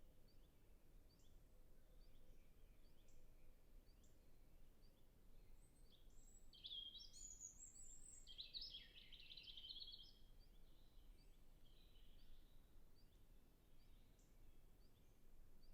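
European robin singing one high, warbling phrase of quickly changing notes lasting about three seconds, midway through. Faint distant birds call with short chirps throughout, over a quiet background.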